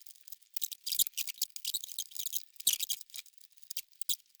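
Irregular clicking and scratching of hand tools working on metal, a quick uneven run of sharp clicks while the motor-mount screws are worked on.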